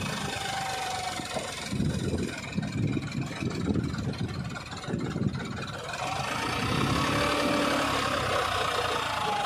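John Deere 5050D tractor's three-cylinder diesel engine working under heavy load as the tractor, bogged in mud, tries to pull itself out. The engine note surges unevenly, then steadies and grows louder in the second half, its pitch rising and falling.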